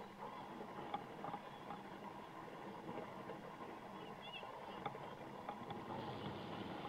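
Faint steady outdoor background noise at a soccer field, with a few light knocks and a brief faint distant call about four seconds in.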